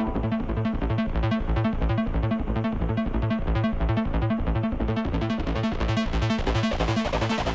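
Instrumental electronic dance music with a steady pulsing beat and synthesizer; a hissing build swells in over the last couple of seconds.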